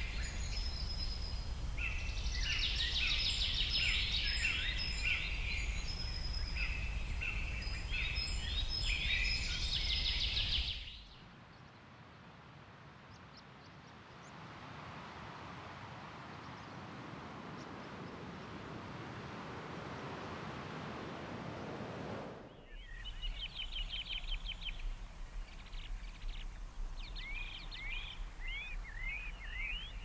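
Outdoor nature ambience in three cut-together parts: dense, overlapping birdsong over a steady low rumble, then about eleven seconds in a cut to a steady rushing noise with no birds that slowly grows louder, then near twenty-three seconds birdsong with quick repeated chirps returns over a low rumble.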